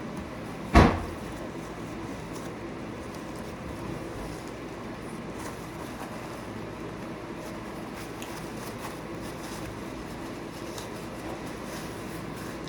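A single loud thump about a second in, then a steady background hum with faint, scattered chewing sounds as the last bite of a spicy shrimp sandwich is eaten.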